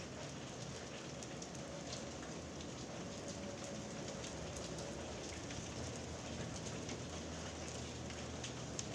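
Steady rain falling during a thunderstorm, with scattered separate drops ticking close by.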